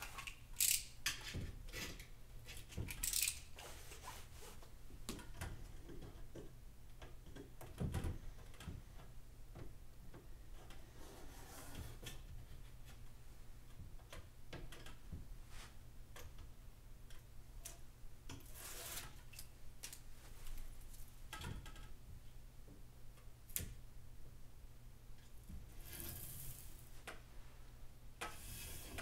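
Double-sided tape being pulled from its roll, peeled from its backing and pressed by hand onto a window frame: a few short rasps of tape tearing away, with soft taps and rubbing between them.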